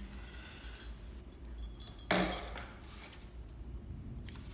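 Small metallic clicks and clinks from a serger being handled as its threads are straightened under the presser foot, with one sharper knock about two seconds in.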